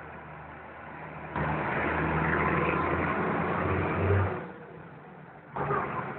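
A motor vehicle going by: engine and road noise rising into a rush for about three seconds, then fading, with a shorter burst of the same noise near the end.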